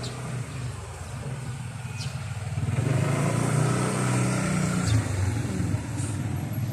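Motorcycle engine running with a low steady hum, growing louder about two and a half seconds in and easing off again near the end.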